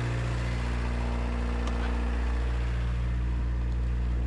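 VW turbo-diesel four-cylinder in a Suzuki Samurai idling steadily, warming up just after a hard start. It is not running right: the engine is worn, with scored and pitted cylinders and a suspected broken ring on number 4.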